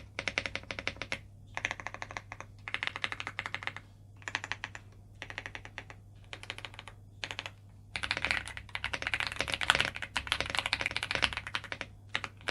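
Aula F75 mechanical keyboard being typed on in quick bursts of keystrokes with short pauses between, the typing turning denser and louder about two-thirds of the way in. The keystrokes have what is described as quite a deep sound.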